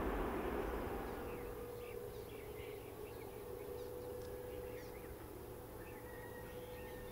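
Jet noise of a Boeing 787-9 rolling out after landing, fading away over the first two seconds to a faint steady hum with a constant tone. Small birds chirp repeatedly in short calls from about a second in.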